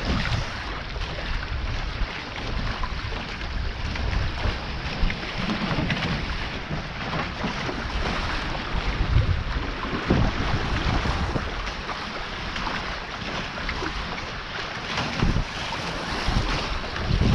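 Wind buffeting the microphone and water rushing past the hulls of a Taipan 5.7 catamaran sailing at speed, with uneven low gusts throughout.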